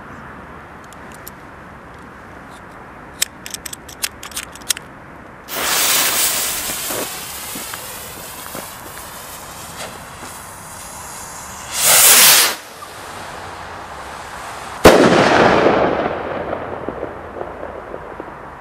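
Black Cat ring rocket firing: a few sharp crackles, then the rocket motor whooshes off about five seconds in and fades as it climbs. A second short loud hiss comes about twelve seconds in, and then the loudest sound, a sharp bang from the bursting charge about fifteen seconds in, rolls away over a few seconds.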